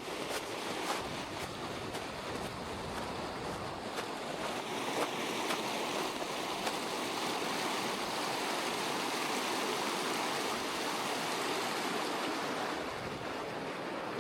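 Rushing mountain stream: a steady wash of water that swells through the middle and eases off near the end. A few faint footsteps in snow sound near the start and end.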